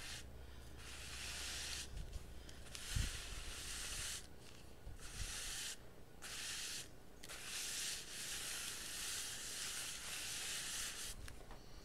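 A mini iron's soleplate sliding back and forth over paper laid on wax paper, giving a soft rubbing hiss in strokes with brief pauses between them, as it melts crayon underneath. There is a light knock about three seconds in.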